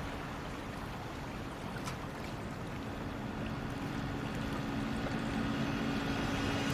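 Sea water washing and rushing around a small life raft, with a low steady drone coming in about three seconds in and slowly swelling.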